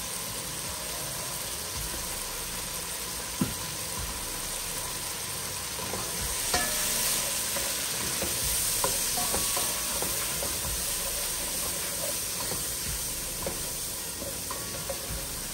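Onion, garlic and ground spices frying in oil in a pan with a steady sizzle, stirred with a spoon that gives scattered light taps and scrapes. This is the masala for kadhi being fried just after turmeric and chilli powder go in. The sizzle swells a little in the middle.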